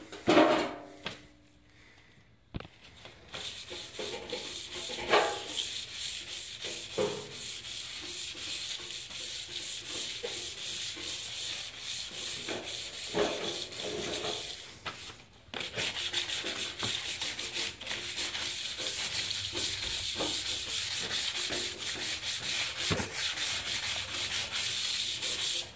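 400-grit wet-or-dry sandpaper rubbed by hand in rapid back-and-forth strokes over the painted front fender of a 2013 Kia Soul. It is scuffing the clear coat so the base coat will adhere. The sanding starts about three seconds in after a short quiet spell and pauses briefly about halfway through.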